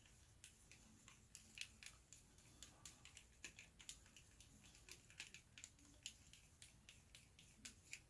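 Faint, irregular little clicks and scrapes of a thin paintbrush stirring airbrush paint in a small plastic mixing cup.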